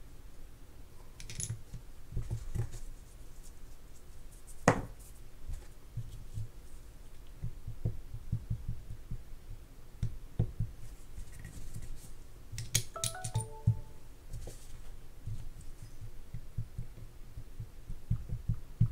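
Small clicks, taps and light clinks of hands handling spinning-reel drag washers and a plastic oil bottle as the washers are set into the spool and oiled. The sharpest click comes about five seconds in, and a few brief ringing metal clinks come around thirteen seconds in.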